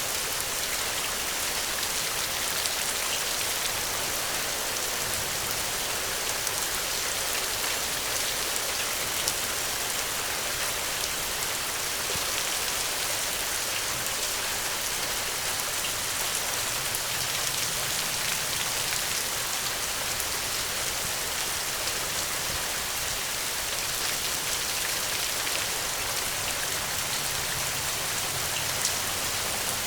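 Steady rain falling, an even patter of many drops with a few slightly louder individual drops now and then.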